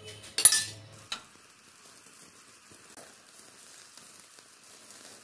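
A roti cooking on an iron tawa: a loud clatter of the metal spatula against the pan about half a second in, a sharp click a second in, then a faint steady hiss as the flatbread cooks.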